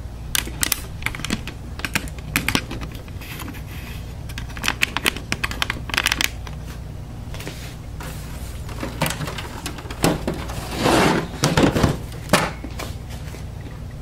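Clicks and knocks from handling a Dell Optiplex desktop computer's case, with a longer scraping rustle about two-thirds of the way in as the side panel is taken off. A steady low hum runs underneath.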